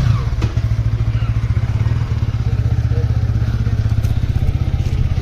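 Kawasaki Ninja ZX-10R inline-four engine: a rev falls away at the start, then the engine idles steadily with a fast, even low pulse.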